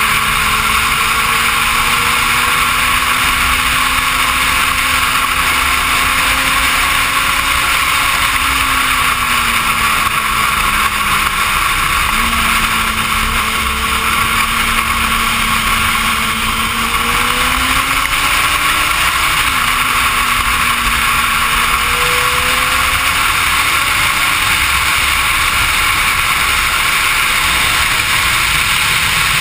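Suzuki GSX-R sportbike's inline-four engine heard on board at highway speed under heavy wind rush. Its note climbs and falls with the throttle, with a few sudden steps in pitch at gear changes.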